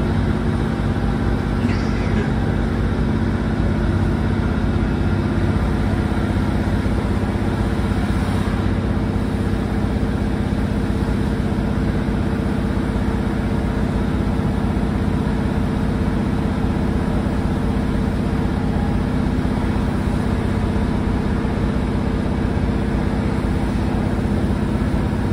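Inside the passenger saloon of a Class 150 Sprinter diesel multiple unit: the underfloor Cummins diesel engine drones at a steady speed over wheel and rail running noise. The level stays even throughout, with no change in engine note.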